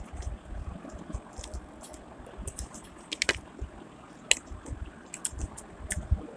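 Mouth noises of someone eating chow mein noodles: chewing and slurping, with sharp clicks of a fork on the plate, several close together a little past the middle.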